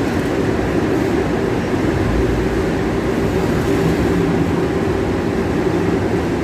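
Steady rumble of a car running, heard from inside the cabin.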